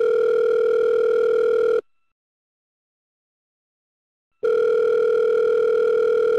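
Telephone ringback tone, the ringing a caller hears while waiting for an answer: a steady buzzing tone about two seconds long, silence for about two and a half seconds, then the tone again.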